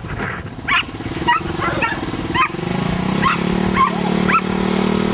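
Nova Scotia Duck Tolling Retriever giving about eight short, high-pitched excited yelps. A motor hum comes in about two and a half seconds in, rises in pitch and then runs steadily, typical of a lure-coursing lure machine's drive motor pulling the lure.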